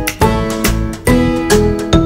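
Background music: chords struck in a steady rhythm, about two a second.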